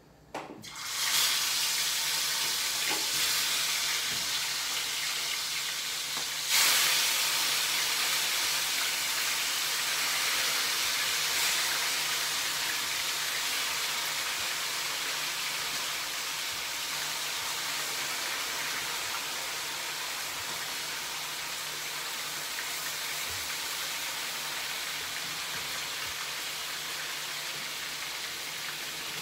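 Pieces of seasoned chicken going into very hot oil in a pot and sizzling hard. The sizzle starts suddenly about a second in, surges again at about six and a half seconds as more pieces go in, then settles into a steady sizzle that slowly gets quieter.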